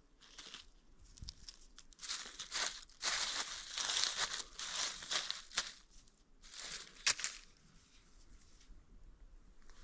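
Dry fallen leaves rustling and crackling as a hand brushes and pulls them aside from around porcini mushrooms, in a run of bursts from about two seconds in to past five seconds, then once more near seven seconds.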